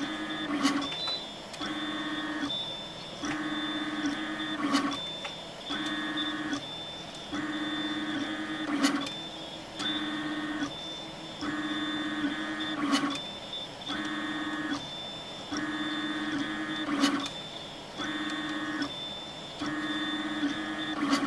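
Prusa Mendel RepRap 3D printer's stepper motors whining as the print head moves. The whine comes in stretches of about a second, changing pitch at each change of direction over a thin background whine. A sharp click comes about every four seconds, as the printer lays down a 0.5 mm thin-walled calibration box.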